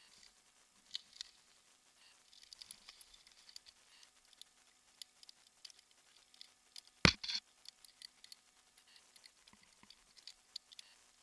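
Climbing rope and metal carabiners shifting and clicking against a rope device and harness, with light rustling, and one sharp knock about seven seconds in.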